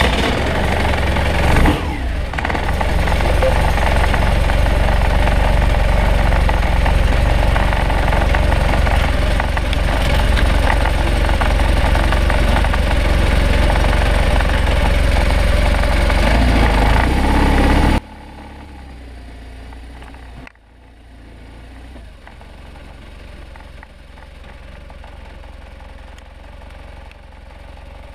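A 2009 BMW R1200RT's boxer-twin engine running loudly just after starting, as the bike moves off. About two-thirds of the way through the sound drops suddenly to a much quieter steady engine hum.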